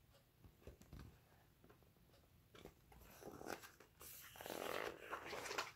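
Soft rustling and handling noises from a hardcover picture book being moved and turned in the hands, a few faint clicks at first, growing louder over the last two seconds.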